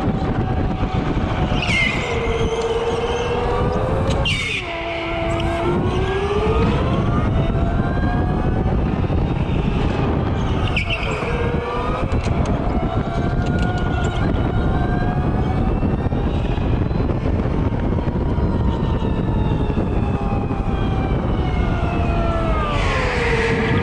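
Electric go-kart motor whining as it drives, its pitch climbing on the straights and dropping sharply about four times as the kart slows into corners, over a steady rushing noise.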